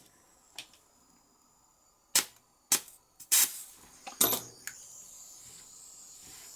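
Butane torch lighter clicking sharply about five times, then a thin, steady, high hiss of butane escaping from its valve, which has not yet been tightened down.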